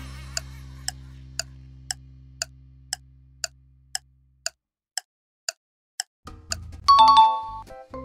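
Quiz countdown timer sound effect: a clock ticking about twice a second over a low synth note that fades away by about halfway. Near the end a short musical sting with bright chiming tones comes in.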